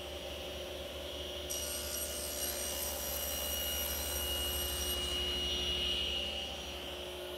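Table saw running steadily, its blade crosscutting a beadboard panel on a crosscut sled. A higher whine joins from about a second and a half in until about five seconds in, while the blade is in the cut.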